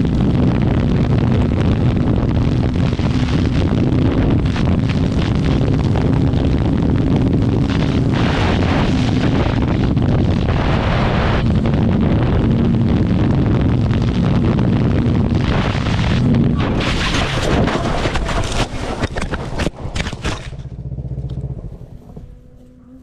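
Sport motorcycle running at speed, heard from on board, with its engine note under heavy wind noise. From about fifteen seconds in come a run of knocks, scrapes and rustling as the bike leaves the road and crashes into brush. The noise drops away about twenty seconds in, leaving a faint hum.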